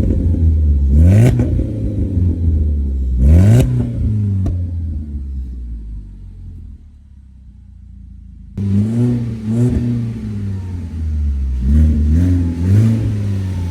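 2016 Ford Focus SE's newly swapped engine revving repeatedly through a loud exhaust, which the owner calls a grass burner. The blips rise and fall in pitch. The sound drops low in the middle, then cuts back in abruptly with more quick revs.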